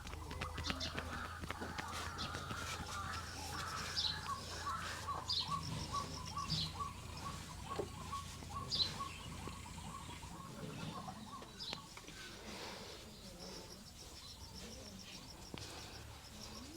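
Birds chirping, over scattered light clicks and taps.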